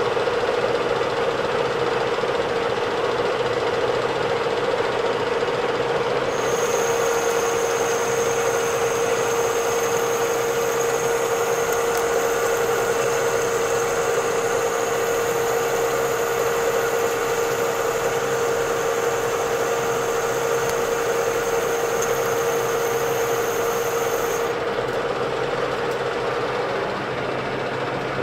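Metal lathe running with a steady hum from its motor and gearing. About six seconds in, a thin high-pitched whine joins it and stops a few seconds before the end.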